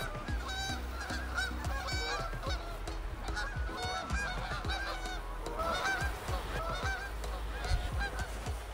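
A large flock of geese flying overhead, many birds honking over one another without a break.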